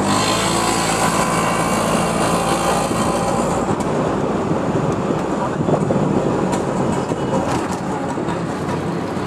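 Auto-rickshaw engine running steadily while riding, heard from inside the open cabin, with a steady engine hum under road and wind noise.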